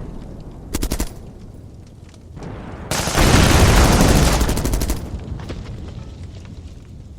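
Battlefield sound effect of automatic gunfire: a short machine-gun burst about a second in, then a longer, louder burst about three seconds in, with a heavy rumble that dies away over the next two seconds.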